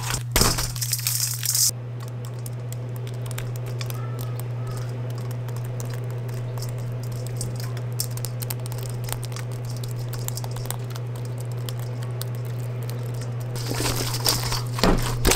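Fried drumsticks dropping and clinking into a stainless steel bowl in the first second or so, then a steady low hum with faint ticks. Near the end the sauced drumsticks are tossed in the bowl, rattling and scraping against the metal.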